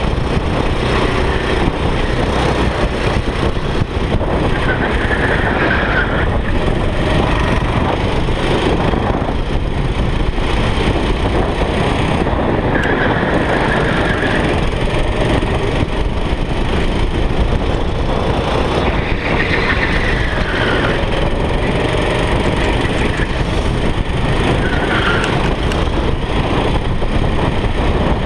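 Kart engine running hard at racing speed, heard onboard with heavy wind noise on the camera microphone. A few short high squeals come and go, each lasting about a second.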